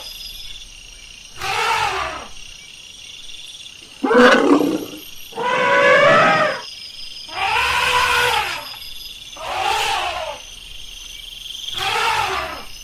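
Elephant calling over and over: six loud, drawn-out calls, each about a second long, about two seconds apart.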